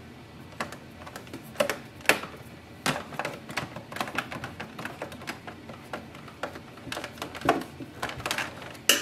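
Screwdriver driving the small retaining screw back into a printer's maintenance box: a run of irregular small clicks and ticks of the bit and screw, with a few sharper clicks among them.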